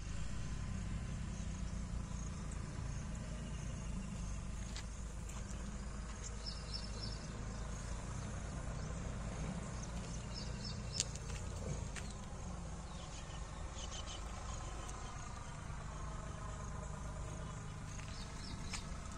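Diesel engine of a 62 kVA generator set, the 370 engine, running steadily with a low, even drone. Faint short high chirps come and go over it.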